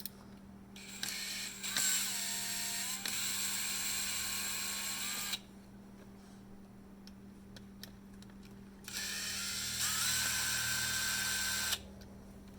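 Cordless drill-driver backing out Phillips screws, run in two bursts of a few seconds each; in each burst the motor's whine shifts in pitch as the screw turns.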